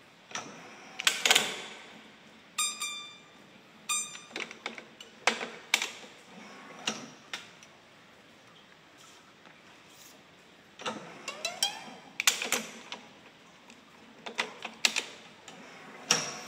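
Badminton racket stringing by hand: a string of sharp clicks and snaps as the string is woven and clamped, with the string zipping through the string bed in a rising glide about eleven seconds in. Twice, about three and four seconds in, the stringing machine's electronic tensioner buzzes briefly as it pulls.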